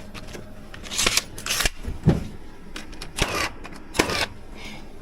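A series of sharp clacks and knocks from wood-framing work, about five over a few seconds, one of them a deeper thump near the middle.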